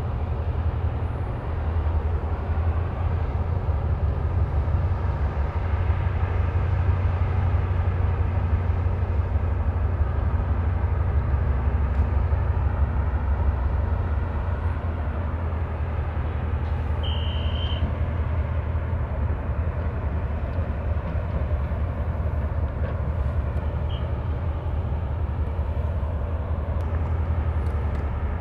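A patrol ship's engines running with a steady low drone. A short high-pitched beep sounds once, about seventeen seconds in.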